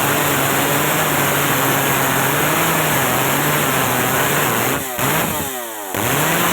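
Stihl MS 381 two-stroke chainsaw running at high revs, its pitch wavering as if under load. Near the end the throttle is let off briefly, the engine winding down, then it revs back up.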